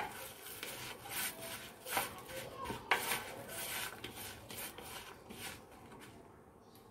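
A hand mixing and kneading mashed potato with poha powder in a plastic bowl, fingers rubbing and scraping against the bowl in repeated strokes, with a couple of light knocks. The strokes die away near the end.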